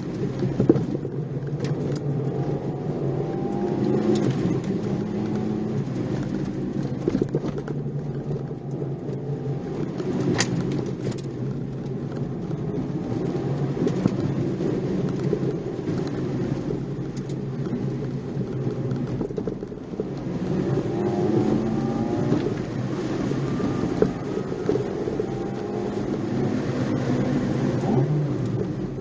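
Nissan March 12SR's 1.2-litre four-cylinder engine heard from inside the car on a winding mountain road, its pitch rising and falling as it revs up and lifts off through the bends. There are occasional sharp knocks, the clearest about ten seconds in.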